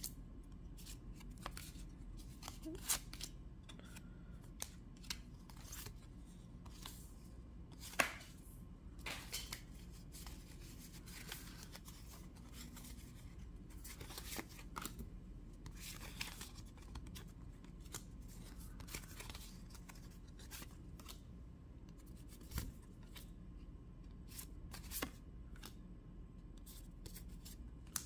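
Pokémon trading cards handled in a stack, each card slid off the front and tucked to the back, giving soft rustles and irregular light clicks of card against card, one sharper snap about a third of the way in.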